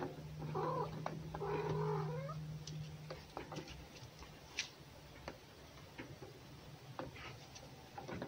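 A domestic cat grumbling with a low growl and yowl: two drawn-out moans in the first two seconds. Scattered light clicks and scuffles follow.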